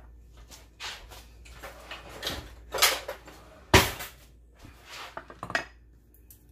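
A ceramic baking dish and a glass bowl being moved and set down on a stone countertop: a handful of separate clinks and knocks, the loudest about four seconds in.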